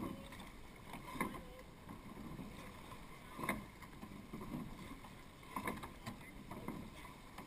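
Surf boat oars working in their gates at a steady race rate: a sharp knock and splash at each stroke, about one every two seconds, over the wash of water along the hull.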